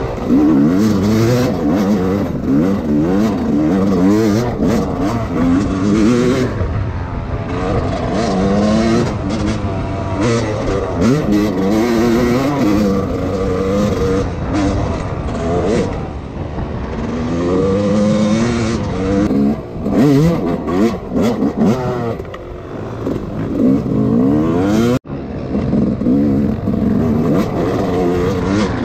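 Dirt bike engine being ridden hard, revving up and dropping back again and again with the throttle and gear changes. The sound cuts out for an instant near the end.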